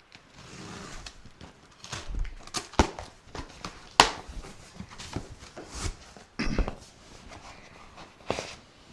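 A cardboard box being opened and its cardboard and styrofoam packing handled: irregular rustles, scrapes and knocks, the sharpest a crack about four seconds in.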